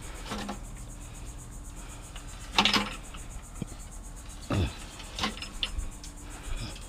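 A few knocks and clunks of scrap items being handled, the loudest about two and a half seconds in, over a steady low hum.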